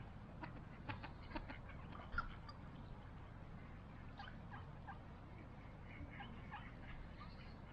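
Mallard ducks on open water calling softly: scattered short quacks and chattering calls, with one sharper call about two seconds in.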